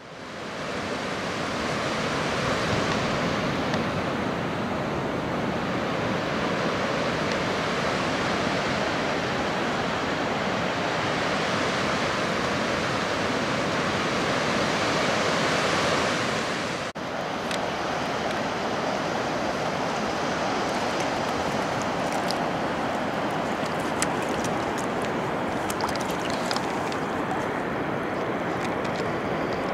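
Surf washing onto a sandy beach, steady throughout, with wind on the microphone. In the later part there are scattered faint clicks.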